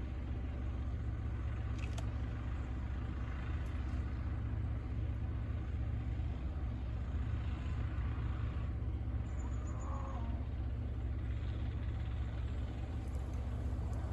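A parked vehicle's engine idling steadily, a constant low hum heard from inside the cab.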